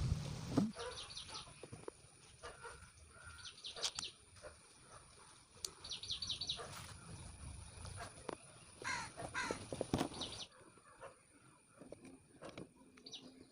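Birds calling: clusters of quick high chirps and several harsh falling calls, some crow-like caws among them. A loud noise cuts off just after the start.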